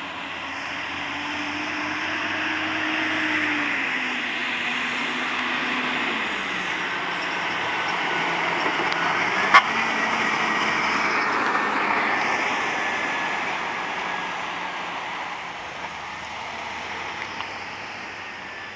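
Motor vehicle driving: steady engine and road noise, the engine note falling over the first several seconds and then holding steady. A single sharp click about halfway through.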